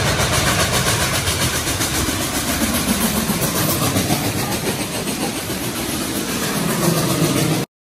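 Train locomotive engine running steadily with a loud rumble and hiss, cut off suddenly near the end.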